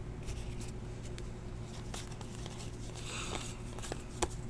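Trading cards being handled and shuffled by hand: faint sliding and light ticks of card stock, a slightly louder rustle around three seconds in and a sharper tick just past four seconds, over a steady low hum.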